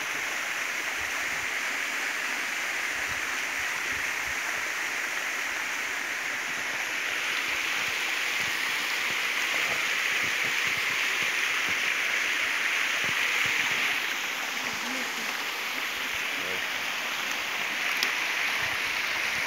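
Small waterfall pouring over rocks into a stream pool: a steady rush of water, a little louder in the middle. A single sharp click near the end.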